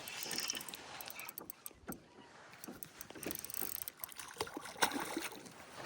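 Fishing reel being cranked while a hooked fish is fought, with irregular mechanical clicks and knocks.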